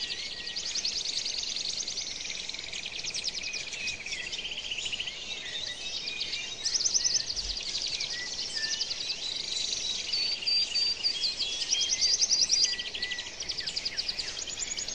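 Many birds chirping and trilling together in a dense, high-pitched chorus, with rapid repeated trills throughout.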